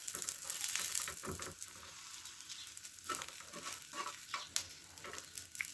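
Food sizzling in hot oil in a frying pan, with a steady hiss broken by several short taps and scrapes from a utensil being moved in the pan.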